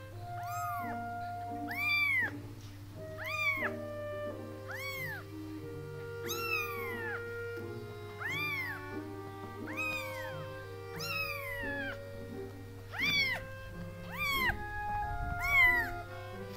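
A ten-day-old kitten mewing over and over, about eleven high calls, each rising then falling in pitch, roughly one every second and a half. Soft background music plays under the calls.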